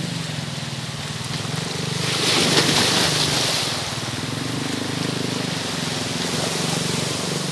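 Boat engine running with a steady low drone under the wash of small sea waves, with a louder rush of water about two seconds in.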